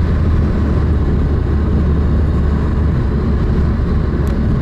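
Steady road and engine noise of a car driving at speed, heard from inside the cabin, with a strong low rumble.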